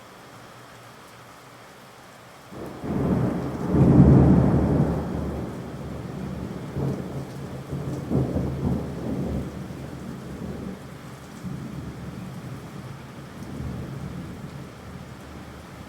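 Steady rain with a roll of thunder that breaks in suddenly about two and a half seconds in, peaks a second or so later, and rumbles on in smaller swells, slowly fading.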